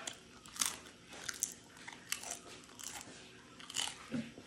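Crisp fried kiping rice wafers crunching as they are bitten and chewed, a string of sharp, irregular crunches.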